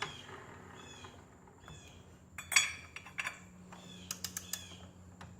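Metal tools clinking and clicking against the scooter's variator as a wrench works the sheave nut: a few sharp clinks, the loudest about halfway, then a quick run of clicks near the end.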